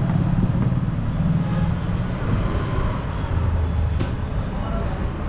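Royal Enfield Meteor 350's single-cylinder engine running steadily with a low rumble.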